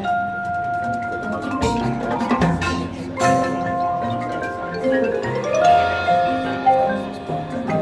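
Marching band music carried by the front ensemble's mallet percussion: marimbas and vibraphones play a passage of held ringing notes, with a few sharp percussion hits.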